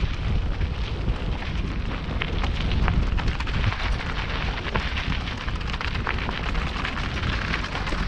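Mountain bike riding down a loose gravel trail, heard from a helmet camera: wind buffeting the microphone in a low rumble, over a steady crackle of tyres on stones and clicks of the bike rattling.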